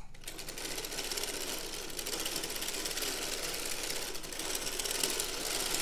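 Dean and Bean's hand-cranked circular sock machine being cranked steadily: a rapid, even clatter of the metal latch needles rising and falling in the cam as the cylinder turns, knitting rows of waste yarn.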